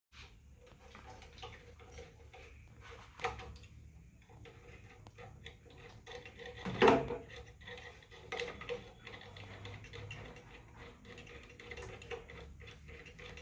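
Scattered small metallic clicks and clinks from handling tools and metal parts during electrical installation work, with one louder knock about seven seconds in.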